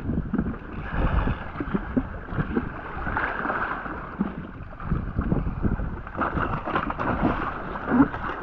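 Wind buffeting the microphone over water slapping against a jet ski's hull, with splashes from a hooked Spanish mackerel thrashing at the surface alongside.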